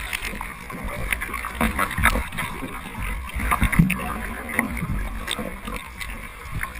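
Sea water sloshing and splashing around a surfboard as the surfer paddles lying down, with irregular splashes from his arm strokes.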